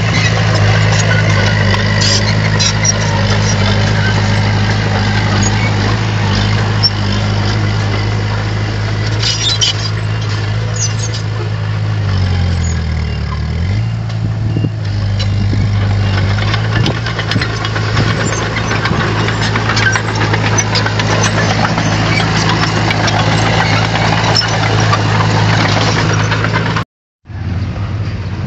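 Bulldozer's diesel engine running steadily, with scattered clanks over it. The engine note dips in pitch and recovers about halfway through, and the sound cuts out briefly near the end.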